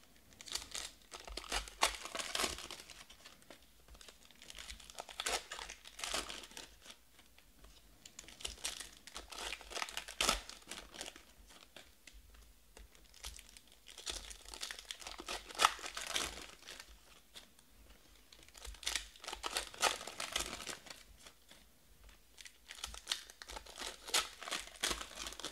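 Trading-card pack wrappers from 2020 Panini Prizm Draft football packs crinkling and tearing as packs are ripped open one after another, in about six bursts a few seconds apart.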